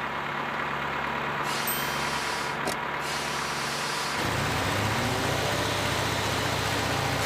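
Cartoon sound effect of a tunnel boring machine running: a steady mechanical rumble that grows louder and heavier about four seconds in.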